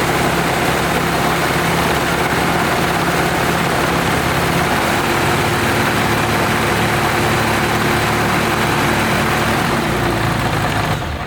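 Freshly rebuilt engine running steadily on its first startup, loud and even with a steady hum, then falling away at the very end.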